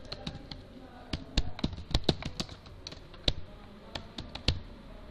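Typing on a computer keyboard: an uneven run of short key clicks as a few words are typed.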